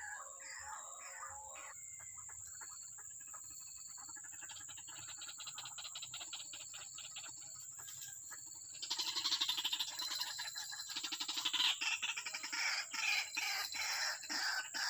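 White-breasted waterhen calling: a fast run of repeated notes, then from about nine seconds in a louder, dense, rhythmic series of calls.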